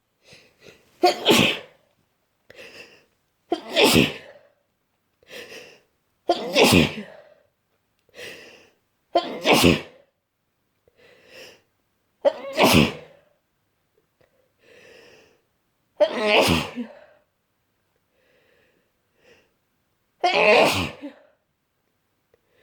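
A person with a heavy head cold sneezing in a rapid fit: seven loud sneezes about three seconds apart, with quieter breaths in the gaps between them.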